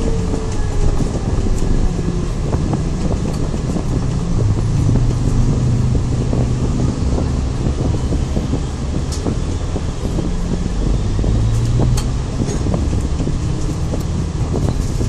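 Cabin sound of an Alexander Dennis Enviro500 double-decker bus on the move: its diesel engine and drivetrain running with a steady low hum that swells twice as it pulls. Short rattles and clicks from the bodywork come now and then.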